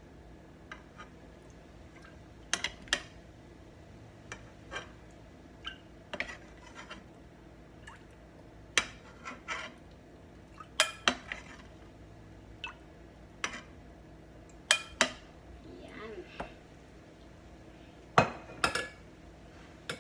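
Metal spoon clinking and scraping against the rim of a pressure-cooker pot and a bowl as fat is skimmed off beef broth, irregular clinks every second or two, with small splashes of broth.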